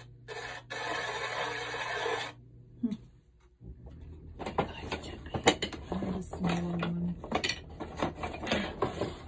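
A hiss lasting about two seconds near the start, then, after a short break, a run of irregular clicks, taps and light clatter of tools being handled at a potter's wheel.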